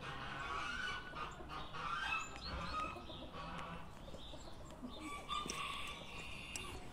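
Short, high-pitched animal calls, repeated many times, busiest about two seconds in and again around five and a half seconds.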